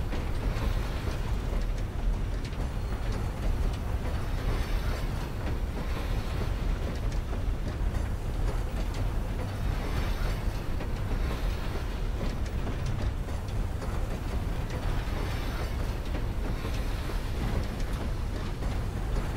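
Passenger train running, heard from inside the carriage: a steady low rumble with hiss above it.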